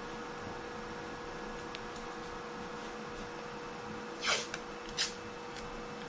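Steady hum of a shop with a fixed faint tone, then two short rasping noises about four and five seconds in, the first falling in pitch.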